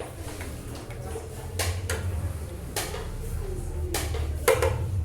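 Kitchen clatter: utensils and dishes knocking and clinking a handful of times, irregularly, over a steady low hum.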